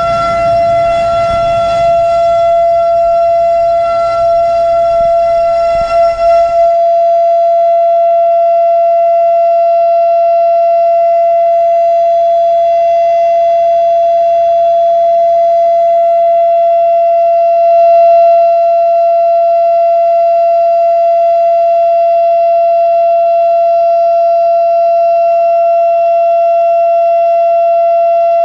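Federal Signal Thunderbeam (RSH-10) outdoor warning siren, with a broken reflector disc, sounding a steady alert tone that holds one pitch. It swells briefly once, about two-thirds of the way through. A low rumble underneath stops abruptly about six seconds in.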